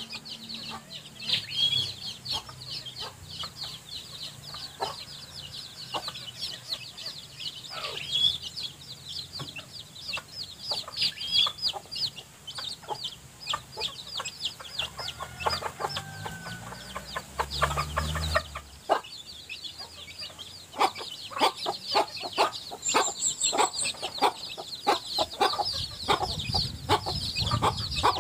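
A brood of young chicks peeping constantly, many short falling peeps overlapping, while their mother hen clucks among them; the clucks come more often in the second half.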